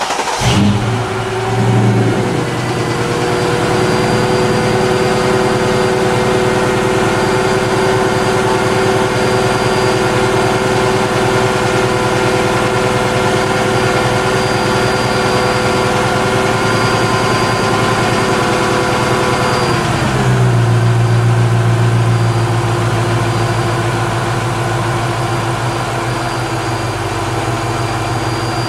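Mercedes-Benz S-Class engine just started and idling steadily, with a fast idle that drops to a lower, steady idle about twenty seconds in. It keeps running after a new MAF and MAP sensor, where before it started and died at once.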